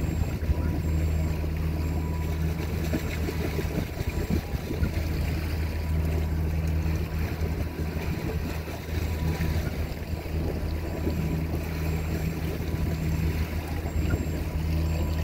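A boat's engine running with a steady low drone, with water rushing past the hull as the boat moves through the sea.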